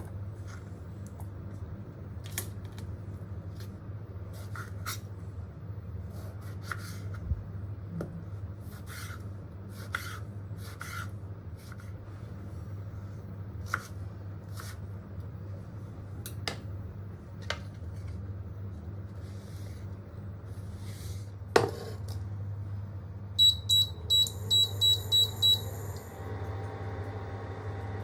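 Light scattered clicks and taps of kitchen handling over a steady low hum. Near the end comes a sharp knock, then a quick run of six short electronic keypad beeps from a kitchen appliance, after which the appliance starts running with a steady hum.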